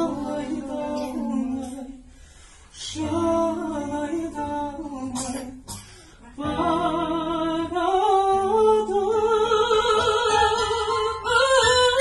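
A man singing a Kazakh song in a high voice: two short phrases with brief pauses, then from about halfway a long note that climbs and is held with vibrato to the end.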